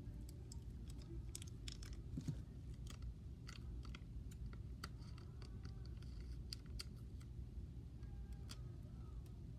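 Scattered small clicks and crinkles of sticky tape being handled and cut into pieces with scissors, over a low steady hum.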